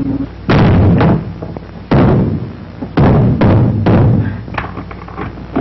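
A person stamping their feet hard on a floor: a string of heavy thuds, roughly a second apart.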